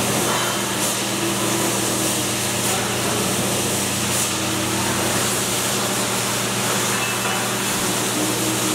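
Steady workshop machinery noise: a constant rush with a low, even hum underneath.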